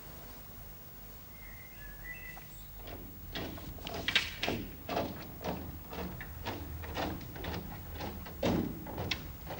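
Footsteps and the taps of a walking stick in a disused railway tunnel, a slow walking rhythm of about two knocks a second that starts about three seconds in and grows louder.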